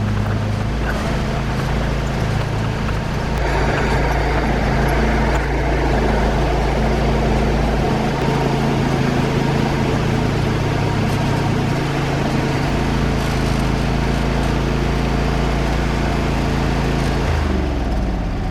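Craftsman riding lawn tractor's engine running steadily, its speed shifting a few times, with its note dropping near the end.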